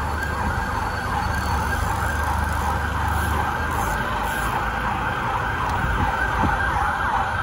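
Emergency-vehicle siren in a fast yelp, its pitch sweeping quickly up and down over and over, over a low traffic rumble that drops away about halfway through.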